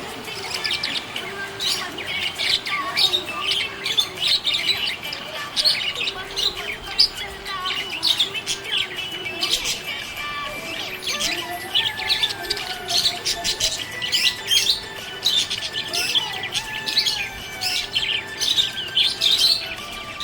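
Budgerigars chirping and warbling: a dense, continuous stream of quick high chirps over a lower wavering chatter.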